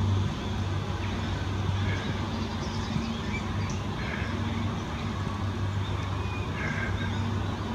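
A steady low mechanical hum that fades in and out, with a few faint bird chirps over it.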